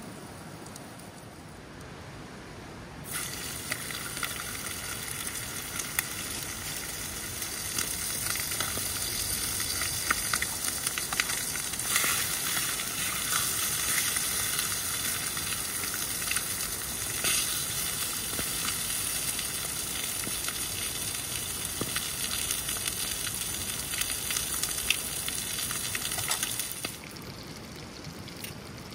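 Chicken sizzling in a cast-iron skillet over a wood fire, with scattered pops and crackles. The sizzle starts abruptly about three seconds in and cuts off abruptly near the end.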